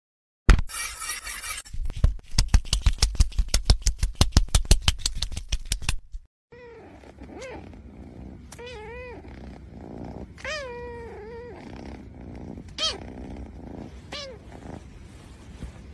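A loud burst, then about four seconds of rapid rhythmic pulses that stop suddenly. After that, a kitten lets out a series of short, high squeaky meows that rise and fall in pitch, over a low steady purr.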